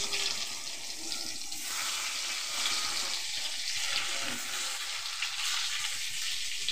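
Whole peeled potatoes sizzling in hot oil in a kadai, a steady crackle, with more potatoes put into the pan as it goes on.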